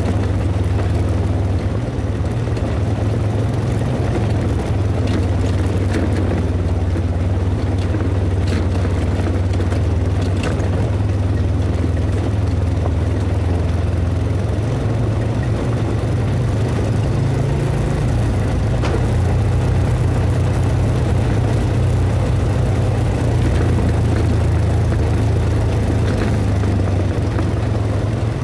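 ATV engine running steadily at cruising speed, with a few brief clicks and knocks as the machine travels over the gravel track.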